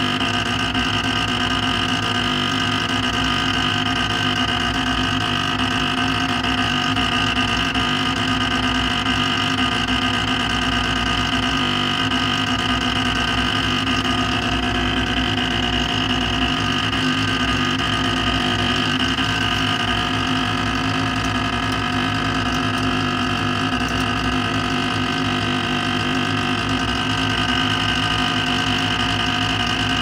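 Creality Ender 5 Pro's Z-axis drive grinding steadily, a constant whine that does not change in pitch. The Z axis is stuck with the bed at the top near the extruder, and the motor keeps driving against it.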